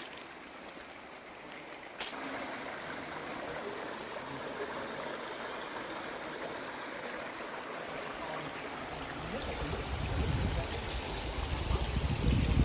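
Creek water running steadily, with low wind rumble on the microphone building from about nine seconds in.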